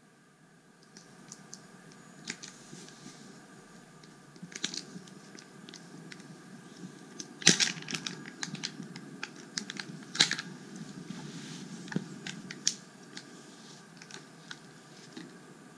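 Irregular clicks and crackles of a plastic Kinder Joy egg and its wrapping being handled and pried apart by small hands, with two louder snaps about halfway through, some three seconds apart.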